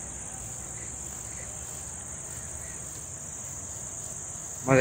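Insects chirring in the trees: a steady, unbroken high-pitched drone, with a brief voice near the end.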